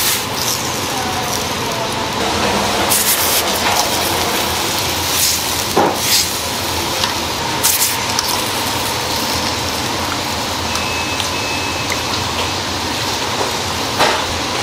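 Steel skewers and a metal whisk clinking and scraping against a stainless steel tray of red pepper paste marinade, with a few sharp clinks spread through, over a steady rushing kitchen noise.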